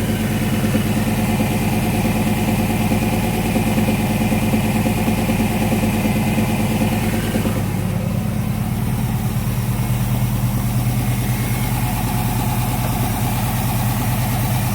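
Ford Capri's V8 engine idling steadily, heard from under the car, its tone shifting about halfway through. It has a knock that the owner takes for a spun connecting-rod bearing.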